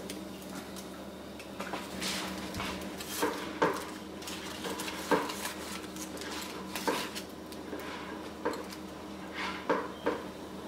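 Scattered light clinks and taps of a metal spatula against a wok and a serving platter, a dozen or so separate knocks over a steady low hum.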